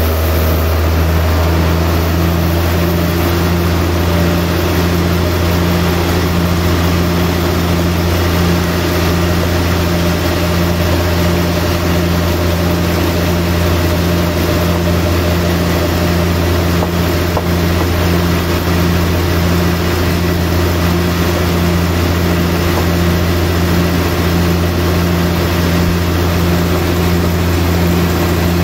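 Large Hata Iron Works sawmill band saw running steadily while its blade cuts lengthwise through a big log. It makes a loud, even machine drone with a deep hum.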